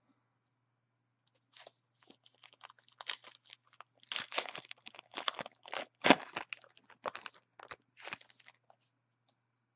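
A 2014 Topps Allen & Ginter card pack's wrapper being torn open and crinkled by hand: a dense run of crackling tears and crinkles starting about a second and a half in, loudest a little past the middle, and stopping shortly before the end.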